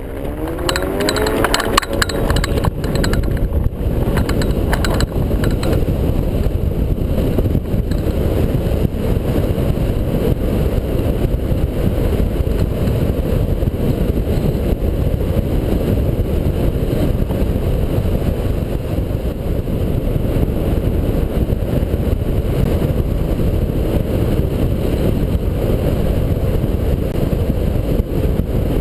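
Aerotow tug's engine revving up in pitch as power comes on for the take-off, with a few knocks in the first seconds, then a steady heavy rush of wind on the glider-mounted microphone through the climb under tow.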